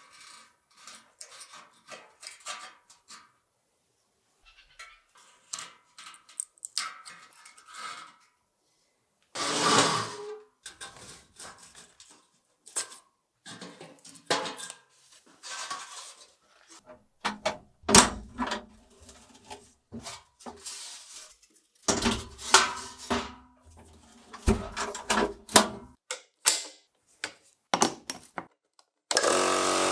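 Small hard parts being handled, with a series of clicks, knocks and clatters broken by short silent gaps. Near the end a loud steady machine noise starts suddenly.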